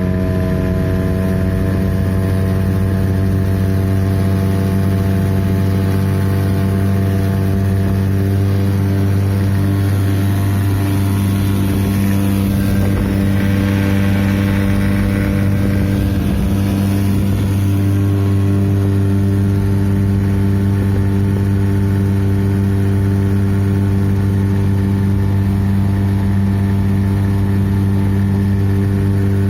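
Boat motor running at a steady pitch while under way, cruising at constant speed.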